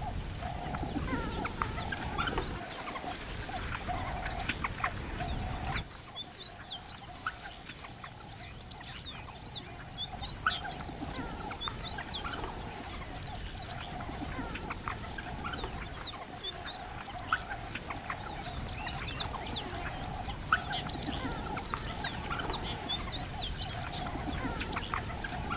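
African wild dog pups squeaking and twittering as they jostle to suckle: many short, high, falling chirps over a steady hum. A low rumble underneath stops suddenly about six seconds in.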